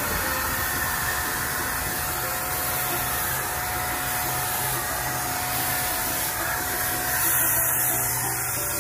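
Electric paint sprayer's motor running steadily, a blower-like hum with a hiss of air.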